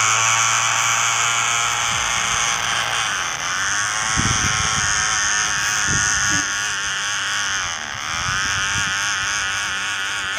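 Small electric toy-car motor of a homemade matchbox RC car buzzing steadily, its pitch wavering and dipping briefly about two-thirds of the way through, with a few low knocks in the middle.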